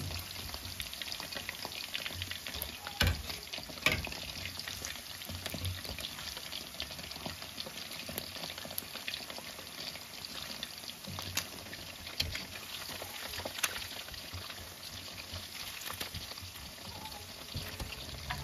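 Chicken wings coated in cornstarch and sesame deep-frying in plenty of oil in a wok over medium-low heat: a steady sizzling hiss with scattered crackles and a few sharper clicks.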